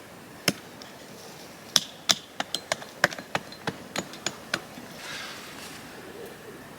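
A quick series of sharp blows of a splitting tool on olive wood while chopping firewood from an upturned olive root: about fourteen strikes, a couple of seconds in coming several a second. Some blows carry a brief metallic ring. The strikes stop about two-thirds of the way through.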